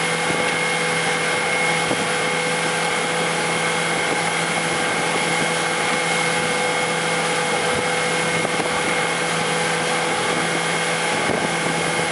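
Towing motorboat's engine running at a steady speed, a constant drone with a few held tones, over the rush of churning wake water.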